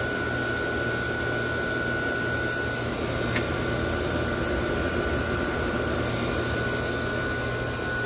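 1984 Amana 24,000 BTU air conditioner with a Tecumseh AB compressor running, heard up close: a steady low hum and a thin steady whine over an even rushing noise. A faint tick a little over three seconds in.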